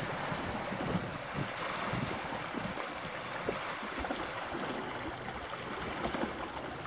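Wind buffeting the microphone in uneven low rumbles over a steady hiss of open water and small waves.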